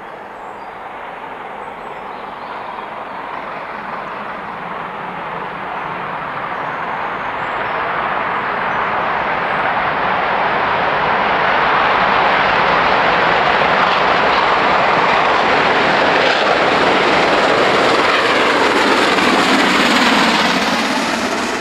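Two GWR 4-6-0 steam locomotives, Hall-class 4965 Rood Ashton Hall and Castle-class 5043 Earl of Mount Edgcumbe, working a train toward the listener: their running noise grows steadily louder and is at its loudest as they pass close near the end.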